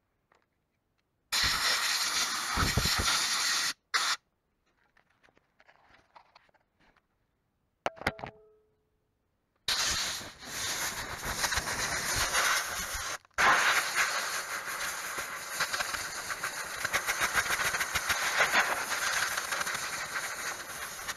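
Compressed-air blow gun blasting air through a brushcutter's clogged air filter to blow the dirt out. A short blast about a second in, then after a pause a long, rough rush of air from about ten seconds in, broken once briefly a few seconds later.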